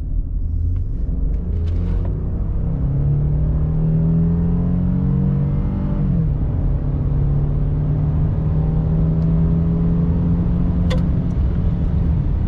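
A 2016 Ford F-150's 3.5 L twin-turbo EcoBoost V6 accelerating, heard from inside the cab, its pitch rising steadily. About six seconds in the pitch drops as the automatic transmission shifts up, then it climbs again.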